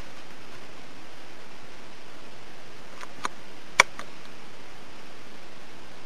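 Steady hiss with three small, sharp clicks a little past three seconds in, the last and loudest close to four seconds.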